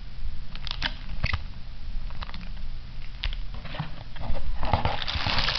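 Handling a trading card and a cardboard box: a few light clicks and taps, then, about four and a half seconds in, a steady rustling scrape as the box's cardboard lid is slid up and off.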